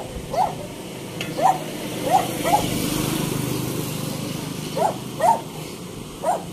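A dog barking: about seven short, sharp barks, some single and some in quick pairs, at irregular intervals.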